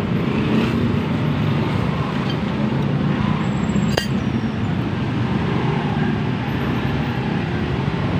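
Steady low mechanical rumble, with a single sharp click about four seconds in.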